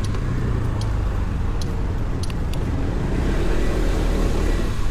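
Steady low outdoor rumble of street noise picked up by a walking action camera's microphone, with a few faint ticks.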